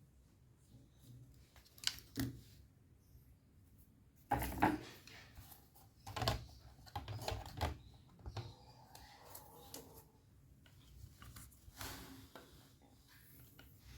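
Laptop parts and small tools being handled: scattered clicks, taps and short scrapes of hard plastic and metal, loudest about four to five seconds in and again around six to eight seconds.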